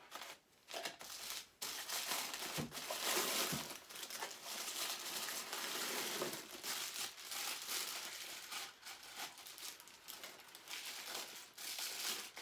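Packing material in a large statue box crinkling and rustling as it is handled and pulled out, with many small irregular crackles.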